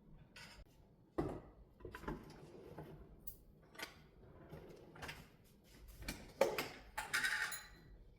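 Objects being handled in a small room: a string of knocks, clicks and rustles, with the loudest knocks about six seconds in and a longer rustle just after.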